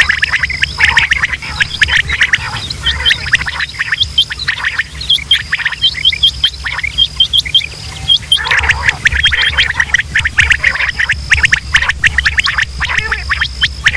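Quail calling over and over in rapid, overlapping bursts of short chirping notes, as used for a hunting lure call. A thin, steady high whine runs behind the calls.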